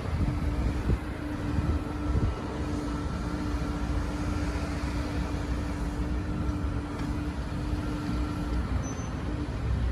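Doosan DX225LC excavator's diesel engine running under load: a steady low rumble with a constant whine that stops near the end, and a few knocks in the first couple of seconds.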